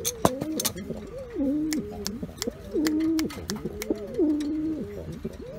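Buchona pouter pigeons cooing: repeated low coos that rise and fall, several overlapping, with scattered sharp clicks.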